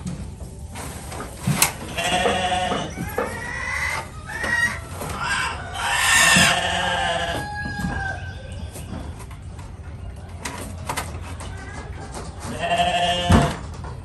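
Sheep bleating several times, with a longer gap before the last call near the end.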